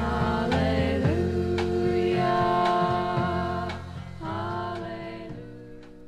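Early-1970s folk-gospel band music: voices singing long held notes over guitar and bass, fading out over the last couple of seconds.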